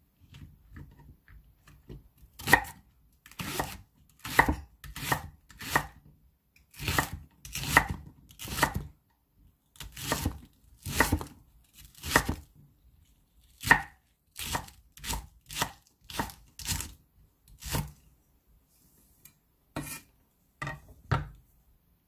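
Chef's knife slicing a large green onion (Korean daepa) into rounds on a thick wooden cutting board: a run of separate cuts, each ending in a knock of the blade on the board, about one to two a second. The cuts are lighter in the first couple of seconds, and there is a short pause near the end before a last few strokes.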